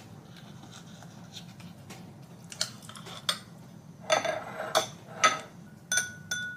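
A metal spoon clinking against a glass bowl and a ceramic dish as soft pear-jelly cubes are scooped and dropped in. About half a dozen short clinks, mostly in the second half, the last one ringing briefly.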